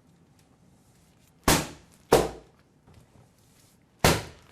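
Sharp slapping strikes from a prop being hit hard: three smacks, two about half a second apart, then a third near the end.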